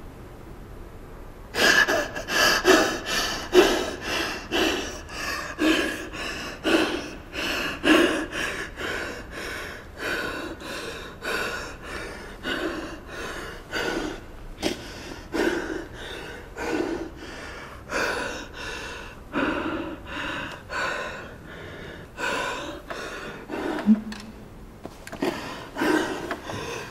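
A person breathing hard in quick, regular, ragged gasps, about one and a half breaths a second, starting about two seconds in.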